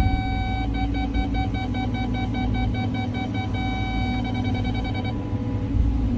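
Cat 323 excavator running with a steady low engine rumble, under a high-pitched electronic beep that pulses on and off, sometimes held, sometimes in quick short beeps, and stops about five seconds in.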